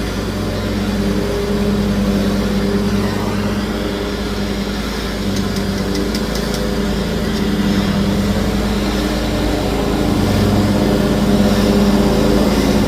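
Handheld gas torch burning steadily while heating a fluxed 3/4-inch copper female adapter to sweat-solder it onto the pipe, a constant low hum and hiss. A few faint crackles come about five to six seconds in.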